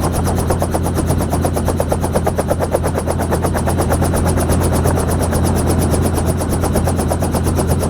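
Helicopter running close by, its rotor blades making a rapid, even chop over a steady low engine hum.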